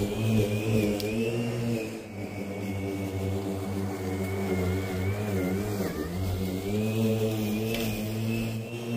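Parkside PRMA 40-Li B3 cordless lawn mower's small electric motor running, a steady hum with a thin high whine; the pitch sags briefly about six seconds in, then recovers.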